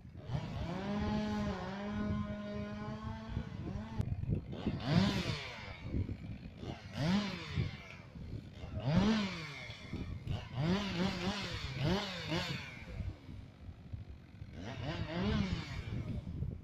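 Chainsaw engine running steadily for about three seconds, then revved up and let back down in six short bursts, each about a second long.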